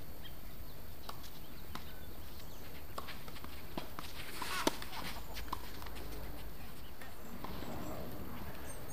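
Tennis balls struck by rackets in a doubles rally: a series of short sharp pocks, the loudest about four and a half seconds in, over a steady low rumble.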